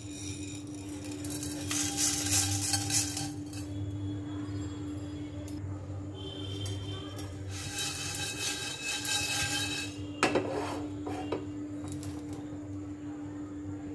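Whole dry spices (bay leaves, dried red chillies, cumin, coriander seed, peppercorns) tipped into a dry nonstick pot for dry-roasting, rattling and scraping against the pan in two spells of a second or two, with a couple of sharp knocks about ten seconds in. A steady hum runs underneath.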